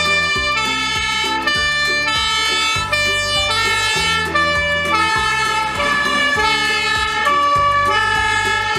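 Fire engine's two-tone siren sounding, stepping back and forth between a high and a low note about twice a second.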